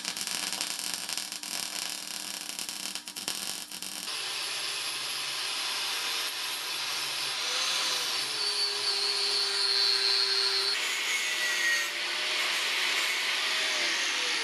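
Electric welder crackling as it plug-welds a steel plate for about four seconds. Then an angle grinder runs against the steel, its whine dipping and shifting in pitch as the disc bites.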